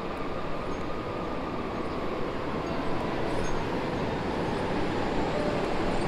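Train rumbling past steadily, with a faint thin squeal riding on top.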